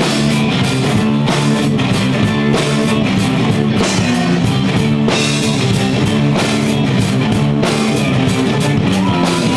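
Rock band playing an instrumental passage: electric guitars over a steady drum-kit beat, with no singing.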